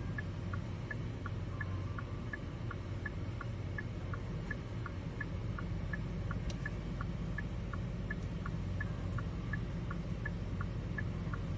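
Car's turn-signal/hazard flasher ticker going tick-tock steadily, alternating between two pitches at about three ticks a second, over a low steady hum.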